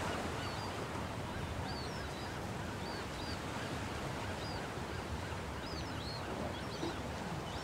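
Outdoor pond ambience of birds calling: many short high chirps and a few lower honk-like calls scattered over a steady background hiss.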